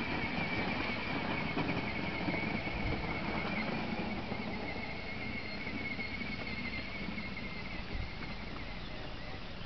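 Battery-powered John Deere Gator ride-on toy running across grass, its electric motor and gearbox giving a wavering high whine over tyre rumble, growing fainter as it moves away.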